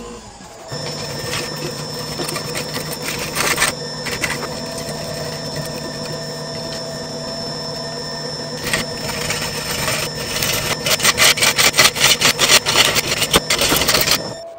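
Wood lathe spinning a burl-and-resin blank, with a steady motor hum and whine. From about ten seconds in, a turning gouge bites into the spinning blank in rapid, uneven scraping strokes that grow louder.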